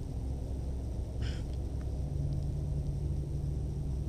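Low, steady wind rumble on the microphone over open lake ice, with a faint steady hum from about two seconds in.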